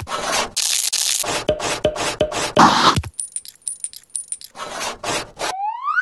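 Marker scribbling on paper in fast, scratchy strokes as a drawing is sketched and coloured in. Near the end comes a short rising whistle.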